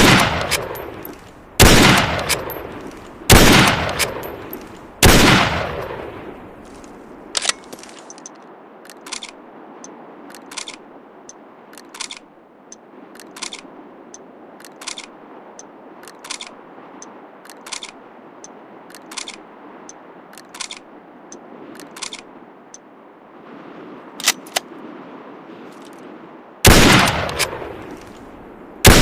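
Enfield L42A1 7.62 mm bolt-action rifle firing: four shots about 1.7 seconds apart, each with a long echoing tail. A long series of light, short clicks follows, often in pairs, then two more shots near the end.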